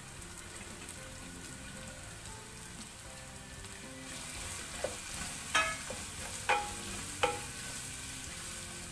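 Sliced onions and small shallots sizzling in hot coconut oil in a non-stick pan. About four seconds in, a wooden spatula starts stirring them, with a few short scraping strokes against the pan about a second apart.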